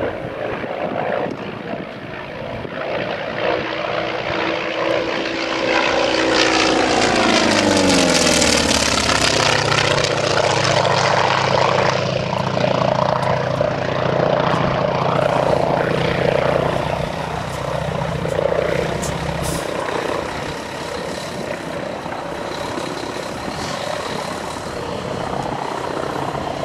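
Grumman FM-2 Wildcat's Wright R-1820 nine-cylinder radial engine and propeller in a flyby: the sound builds, peaks about eight seconds in as the pitch drops while the plane passes, then runs lower and slowly fades as it flies away.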